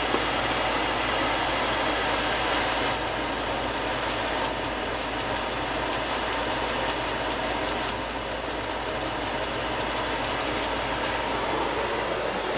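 Chicken livers and chopped onion sizzling steadily in a pot. From about four seconds in until near the end, a spatula stirs the pot in quick, even scraping strokes.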